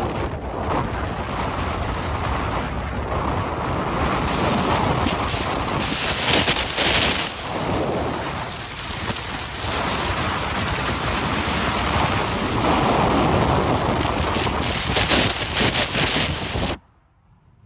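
Loud rushing and rumbling road and wind noise from a vehicle driving across a steel truss bridge, surging up and down, and cutting off suddenly near the end.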